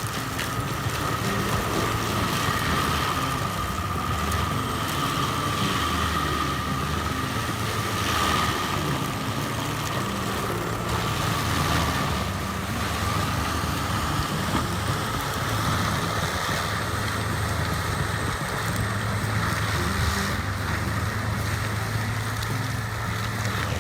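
A heavy forestry machine's engine running steadily under load, with a constant high whine over a low drone.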